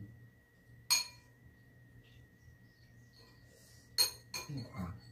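A metal spoon clinking against a bowl at the table: one sharp clink about a second in and two more close together near the end.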